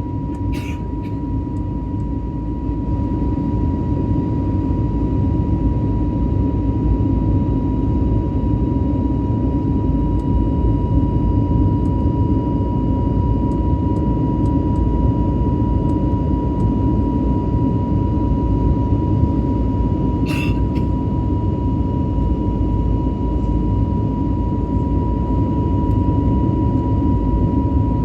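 Airbus A320neo jet engines heard from inside the cabin: a loud, steady rumble with a steady whine, swelling a little about three seconds in. There is one brief click about twenty seconds in.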